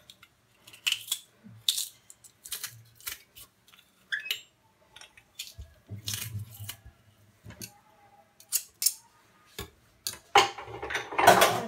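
Metal garlic press crushing garlic cloves over an aluminium pot: scattered sharp clicks and knocks of the hinged press and of metal tapping the pot, busier and louder near the end.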